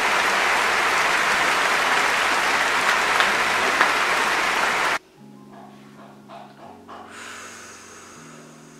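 Large concert audience applauding after a song, cut off abruptly about five seconds in. Then soft background music of held chords, changing about every second and a half, with a few faint clicks.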